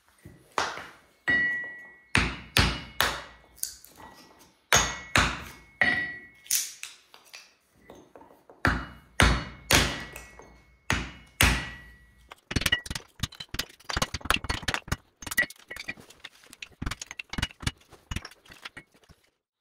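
Chopping blows splitting wooden blocks into kindling on a steel anvil: about fifteen sharp knocks over the first twelve seconds, a few with a faint metallic ring, then quicker, lighter knocks and the clatter of split sticks.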